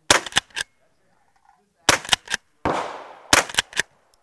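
Gunshots at an outdoor range: three bursts of three or four sharp cracks, about a second and a half apart, and a rushing noise that falls in pitch about two and a half seconds in.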